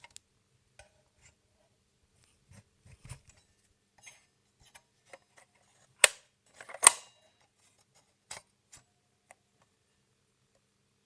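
Old mechanical alarm clock being handled: scattered small clicks and knocks, with two sharp, louder clicks about six and seven seconds in.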